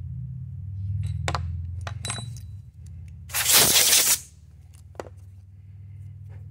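A few sharp metal clinks in a steel milling vise, then a hiss of about one second, typical of a compressed-air blast clearing chips from the jaws, over a steady low machine hum.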